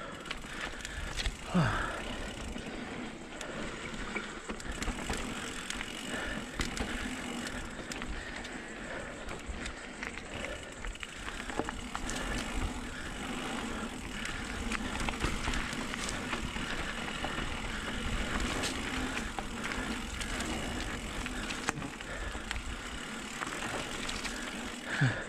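Electric mountain bike riding fast down a dry dirt trail: tyres rolling and crunching over dirt and loose stones, with the bike rattling over bumps. Steady throughout, with a sharper knock about a second and a half in and another near the end.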